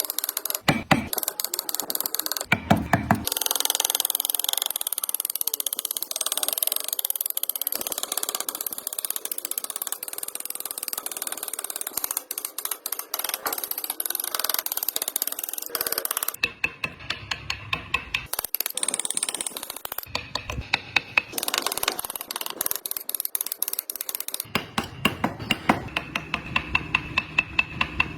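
Hand work on wood with carving tools: rapid clicking and scraping that changes abruptly several times.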